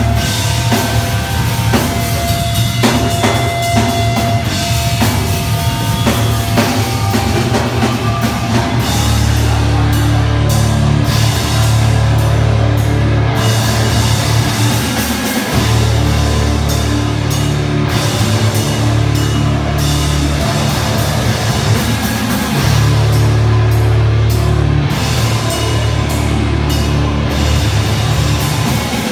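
Live heavy rock band playing: drum kit with cymbals, and distorted electric guitars and bass. The heavy low end of the guitars and bass fills in about nine seconds in and drops out briefly a couple of times.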